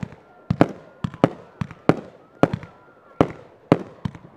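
Aerial fireworks going off in quick succession: a string of sharp bangs, two or three a second, each with a short echo after it.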